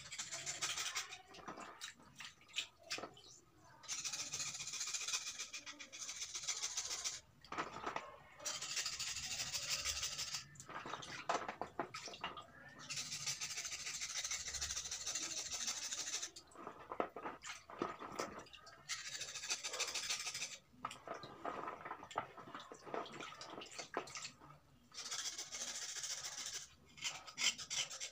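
Knife blade scraping a wet slate stone: fast gritty scraping strokes in spells of about two to three seconds, with short pauses between.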